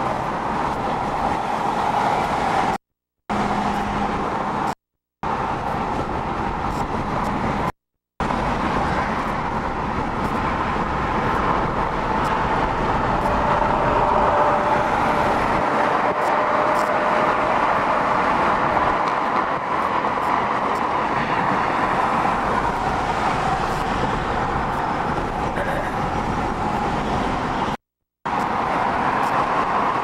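Steady road and wind noise of a car travelling at freeway speed, heard from inside the car. It cuts out to silence four times for a moment.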